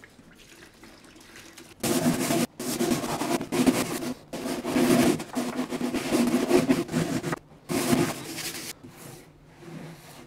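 Brisk scrubbing of the crusty water-pump mounting bracket with a brush, in rapid back-and-forth bursts broken by short pauses, starting about two seconds in and stopping a little before the end.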